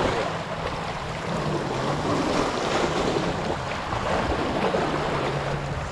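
Small waves washing and fizzing over shoreline rocks, with wind on the microphone.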